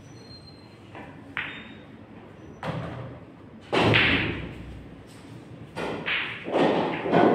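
Pool shot on a tournament table: a sharp click of the cue and balls about a second and a half in, then several heavy thuds and rumbles as pocketed balls drop and roll through the table's ball-return channel.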